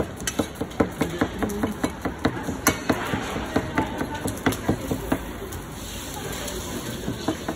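A long-handled metal skimmer knocking and scraping against the side of a giant plov kazan as the zirvak of meat and carrots is stirred, about three or four knocks a second. The knocks stop after about five seconds, leaving a steady sizzling hiss from the frying.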